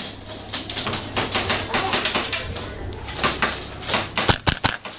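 Airsoft guns firing during close-quarters play: rapid clicks and pops, with a string of sharp shots near the end.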